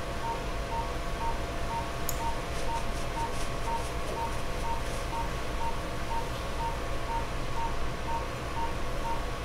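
Operating-room patient monitor beeping with the pulse: a short, high, even beep about two to three times a second, over the steady hum of theatre equipment.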